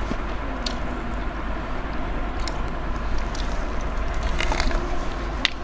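Eating sounds: crisp crunches and clicks as a person bites into and chews a fried mozzarella corn dog coated in sunflower seeds and chocolate. The crunches are scattered at first and come thickest about four to five and a half seconds in, over a steady low hum and hiss.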